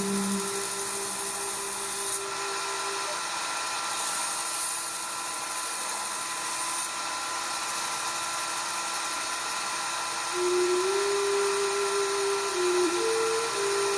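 An electric power tool running steadily with a high whine, a grinding hiss coming and going as the work is pressed to it and lifted off.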